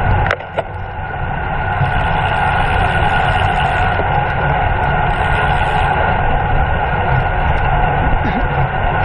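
Steady rush of wind over the microphone of a camera carried on a bicycle at race speed. The noise dips briefly just under a second in, with a couple of sharp clicks.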